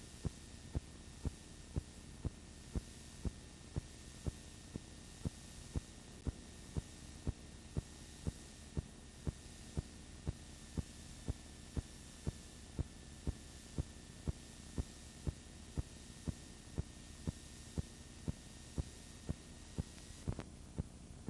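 Steady hum and hiss of a transfer soundtrack with a sharp click about twice a second and a faint steady high whine, cutting off abruptly at the end.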